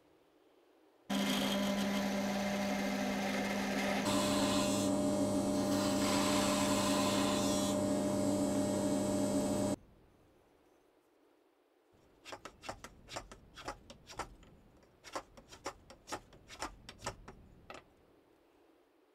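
A workshop power tool's electric motor runs steadily for about eight seconds, then cuts off. A few seconds later come about a dozen short, sharp strokes of a hand plane shaving the end of a wooden hammer handle.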